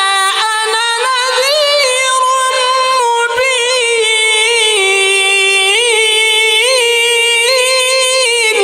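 A male Quran reciter's voice holding one long, high-pitched note of tilawat, ornamented with small trills and turns in melismatic Quranic cantillation.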